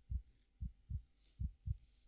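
Slow heartbeat, each beat a soft double thump (lub-dub), about 75 beats a minute. In the second half, the soft high rustle of fingers or a brush through hair plays over it.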